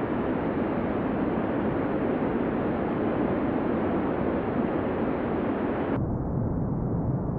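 Steady rushing noise, a sound effect for a rocket venting gas on the launch pad. About six seconds in it cuts abruptly to a duller, deeper rumble.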